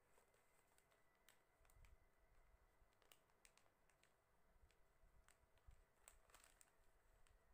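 Near silence with faint, scattered clicks and crinkles of small plastic bead packets being handled.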